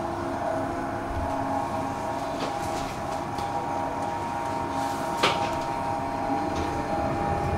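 Tram running on its rails: a steady rumble with a few steady tones through it, and one sharp click a little past the middle.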